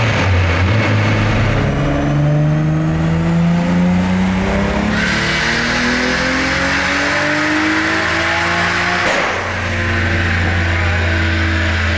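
Toyota Supra's turbocharged 2JZ straight-six at full throttle on a chassis dyno, its revs climbing steadily through one long pull through a big exhaust, with a loud rushing hiss joining about five seconds in. About nine seconds in the throttle snaps shut and the engine and dyno rollers coast down.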